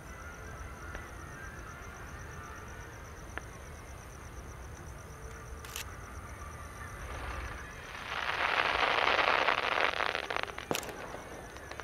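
Distant aerial fireworks: a few faint pops, then about three seconds of dense crackling from the bursting shells, ending with one sharp bang.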